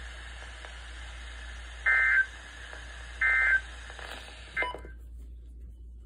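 Weather radio hissing, then two loud bursts of warbling data tones about a second and a third apart: the SAME/EAS end-of-message code that closes an NWS warning broadcast. A third burst begins about four and a half seconds in and is cut off at once as the radio goes silent.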